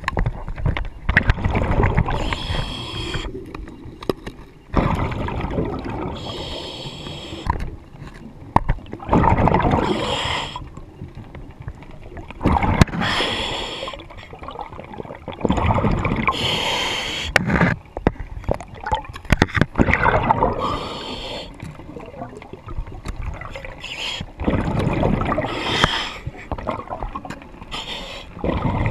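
Diver breathing underwater through a hookah regulator fed by a surface air compressor: regular breaths about every three to four seconds, each a hiss of air and a rush of bubbles.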